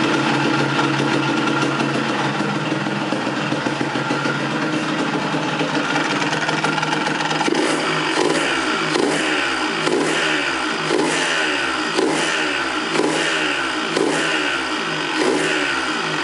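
Yamaha DT 180 two-stroke single-cylinder engine running, with short surges about once a second from about halfway through. The owner says the engine rattles at a standstill since its rebuild with a new crankshaft, and that pulling the clutch reduces the rattle; he has not found the cause.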